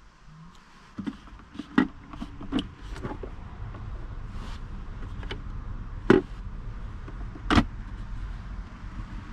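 Car doors and fittings being handled: a run of clicks and knocks, then two heavier thuds about six and seven and a half seconds in, over a steady low hum.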